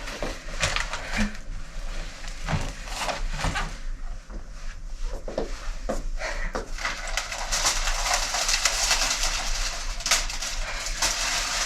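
Knocks, clicks and clatter of objects being handled and moved about at a desk. About seven seconds in, a steady rustling hiss begins and runs on with more clicks.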